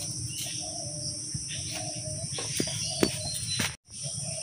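Insects, crickets by their sound, chirring steadily and high-pitched, with a couple of sharp clicks about two and a half and three seconds in. The sound briefly cuts out near the end.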